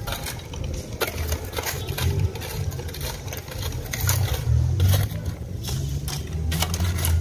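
Metal shovels scraping and striking into gravelly dirt and rubble, a series of sharp scrapes about a second apart, over a steady low rumble.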